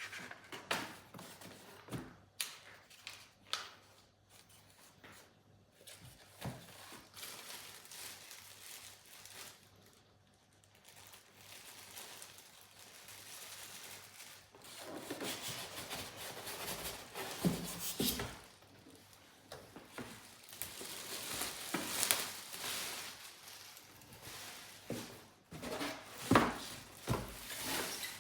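Household handling sounds: scattered knocks and clicks of objects being moved, with a louder stretch of rustling in the second half.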